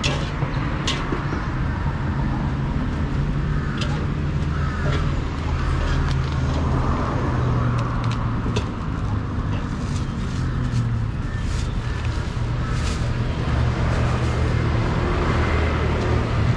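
Busy street-food ambience: a steady low rumble of road traffic, with faint background voices and scattered short clinks.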